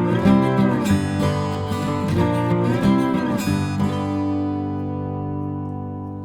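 Background music on acoustic guitar, plucked notes with bent pitches, then a final chord ringing and fading out about three and a half seconds in.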